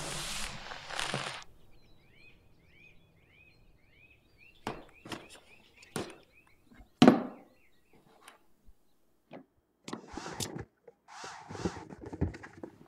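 A multirotor drone's buzz cuts off about a second and a half in, and a small bird chirps faintly several times. Then a cardboard box is knocked and set down on a wooden table in a few separate thuds, the loudest about seven seconds in, followed by scuffing and rustling of the cardboard near the end.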